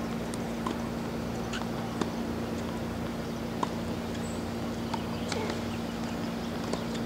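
Distant tennis play on outdoor hard courts: sharp pops of a ball being struck every second or two, with a few short squeaks, over a steady low hum.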